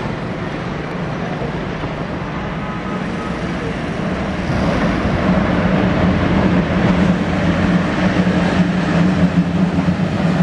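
Double-headed HXD1C electric locomotives approaching and drawing alongside. The train noise carries a steady low hum and steps up in loudness about four and a half seconds in as the leading locomotive nears.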